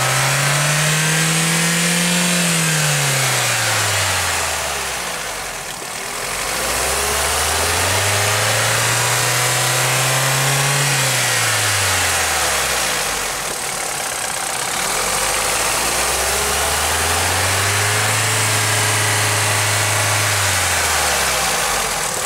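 Opel Corsa D's 1.2-litre 16-valve Z12XEP four-cylinder petrol engine revved up and held at high revs three times, dropping back toward idle between each rev.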